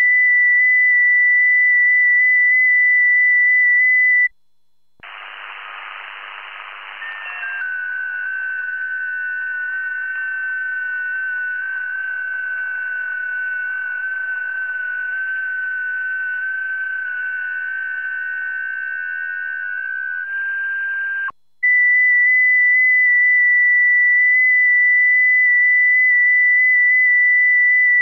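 FT8 digital-mode audio. A single FT8 transmit tone near 2 kHz steps slightly in pitch and stops about four seconds in. After a short pause comes shortwave receiver hiss carrying several overlapping FT8 signals as fainter steady tones for about sixteen seconds. The single, louder FT8 tone starts again about 22 seconds in.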